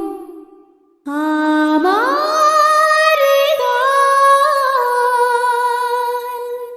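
Intro of a Bengali film love song: a held melodic line fades out, and after a second's silence a new note glides up and is sustained with small melodic turns, fading near the end.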